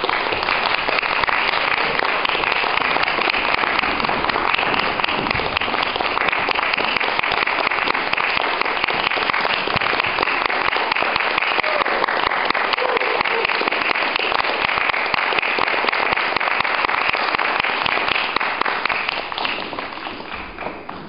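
Theatre audience applauding: dense, steady clapping that fades away near the end.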